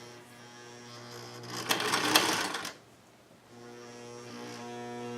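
Vintage Singer Touch and Sew sewing machine running and stitching. Its motor hum builds, with a louder clattering stretch about two seconds in. It stops briefly around the middle, then starts again and builds up once more.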